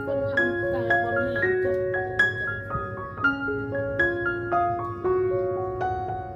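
Background music: a gentle tune of struck, piano-like notes, one after another, each ringing on briefly.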